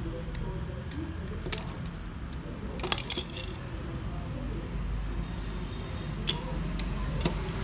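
Sharp clicks and light plastic clatter of a circuit board and ribbon-cable connectors being handled and plugged together, with a cluster of clicks about three seconds in. A steady low hum runs underneath.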